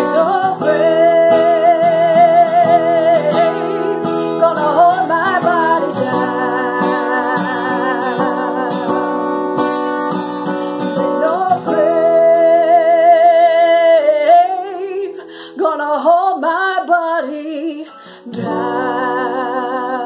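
A woman singing to her own acoustic guitar. She draws out long, wavering notes without recognisable words over strummed chords.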